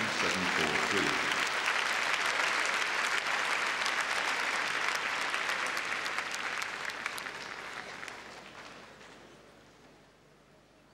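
Large arena crowd applauding, many hands clapping at once, loud at first and then gradually dying away over the last few seconds.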